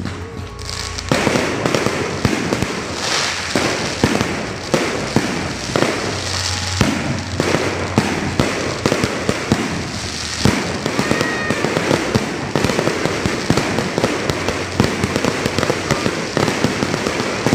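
Aerial fireworks going off in a rapid, unbroken barrage of bangs and crackling that starts about a second in.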